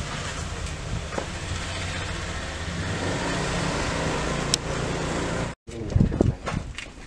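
A motor vehicle engine running steadily with a low hum, cut off abruptly about five and a half seconds in; a few short, irregular knocks and noises follow near the end.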